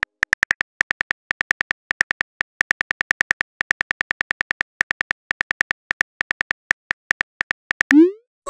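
Rapid phone-keyboard typing clicks, a simulated tap sound for each letter, several a second. Near the end a short rising swoosh sounds as the message is sent.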